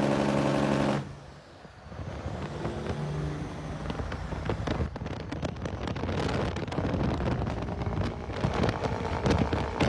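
Semi truck's engine brake (jake brake) running with a loud, even pitched blat that cuts off suddenly about a second in. Then comes a quieter rumble of truck and wind noise with scattered rattles, growing louder toward the end.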